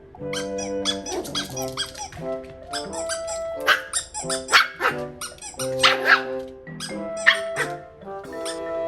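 Several short, sharp dog yaps or squeaky barks, loudest in the middle, over steady background music.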